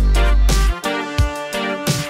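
Background music with a deep sustained bass note and drum hits; the bass drops out under a second in.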